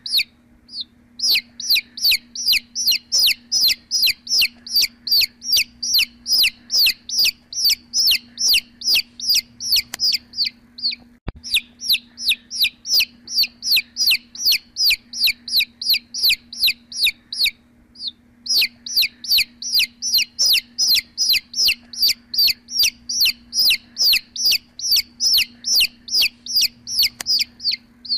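Chicks peeping: a fast, regular run of short, high, falling peeps, about three to four a second, with two brief pauses. A steady low hum runs underneath.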